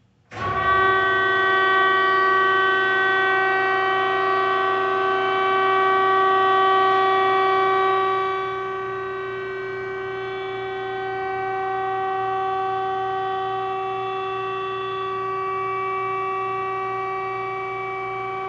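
Hydraulic pump of a 20,000 lb Zwack F-20 upender running as its platform tilts up under power: a steady, high whine with several pitches at once. It starts abruptly, eases down a little in level about eight seconds in, and stops when the control is released.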